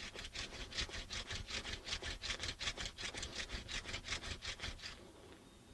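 Hand-drill fire set: a mullein-stalk spindle spun fast between the palms, drilling into a clematis vine hearth board with more pressure in the final push for a coal. It makes a rapid, even wood-on-wood rasping, about five strokes a second, which stops about five seconds in.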